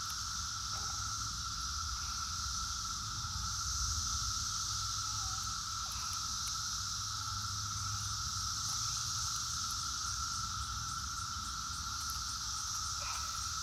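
Chorus of Brood X periodical (17-year) cicadas, a steady, unbroken high-pitched drone with no pauses.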